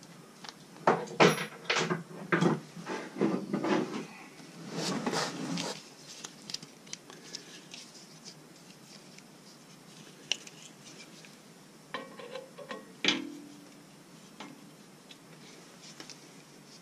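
Metal hand tools clinking and clattering as they are rummaged through, in a busy run of clatter over the first six seconds, then scattered clicks and one sharper clank with a short ring about thirteen seconds in.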